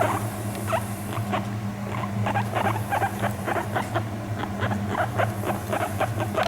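Guinea pig making a quick series of short, soft squeaks over a steady low hum: the contented, affection-seeking sounds it makes when relaxed and being petted.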